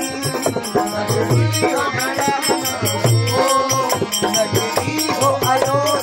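Live bhajan music: a harmonium and a sung melody over a steady tabla beat, with a rattling hand percussion keeping time.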